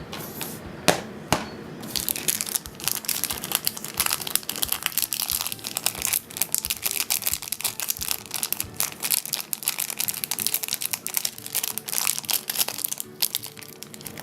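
Crinkling and crackling of plastic wrapping being peeled and handled off a new smartphone, after two sharp clicks about a second in.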